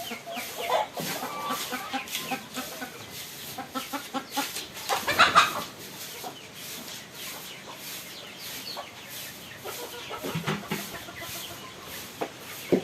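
Chickens clucking inside a chicken house, mixed with many short scrapes and knocks, with a louder burst about five seconds in.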